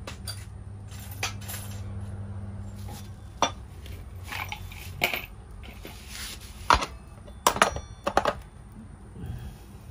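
Metal parts clinking and clicking as a brush-cutter engine's aluminium clutch housing and small hardware are handled and fitted, a scattering of sharp knocks, a few with a short metallic ring. A steady low hum runs underneath.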